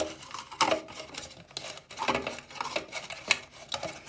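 Hard plastic parts of a Dyson vacuum wall mount being handled, with irregular clicks, knocks and rubbing as a power cord is fitted into it.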